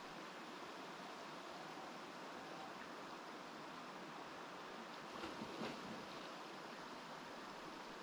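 Mountain river water flowing in a steady, even rush, with a brief slightly louder patch of a few bumps about five seconds in.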